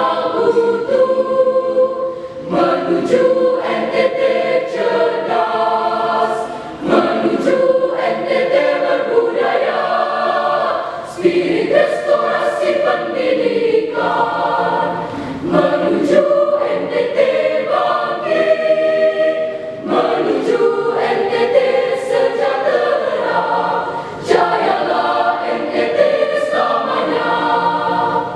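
High school choir singing in several parts, in phrases with short breaks between them.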